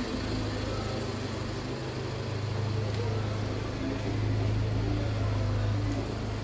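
Steady low mechanical drone with a constant hum, like a running engine or motor, swelling slightly about two-thirds of the way through.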